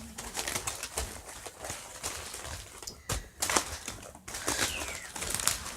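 Handmade craft pieces being handled and pressed into place: rustling with scattered knocks and taps, the sharpest a little past halfway.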